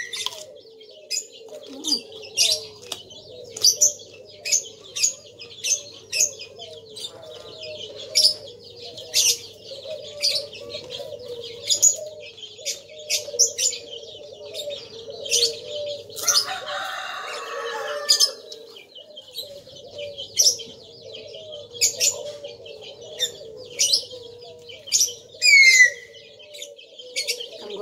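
Small birds chirping in quick, repeated short high notes, one now and then falling in pitch, over a steady low drone, with a brief rustling noise about two-thirds of the way through.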